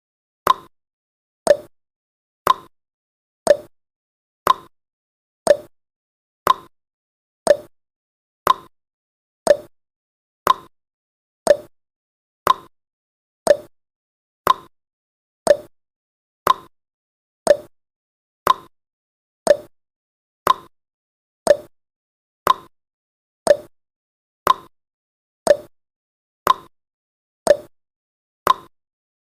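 Countdown timer's ticking sound effect: a short, sharp tick once a second, evenly spaced and steady in level.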